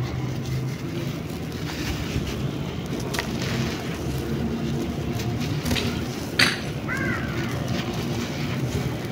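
A dry sand-and-cement block crumbling in bare hands, loose grains crackling and pouring, over a steady low hum of background noise. A sharp click about six seconds in, then a short high chirp.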